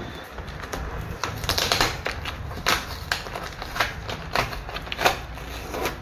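A large cardboard carton and its packing being pulled and torn open by hand: irregular sharp crackles, snaps and rips, about a dozen in a few seconds.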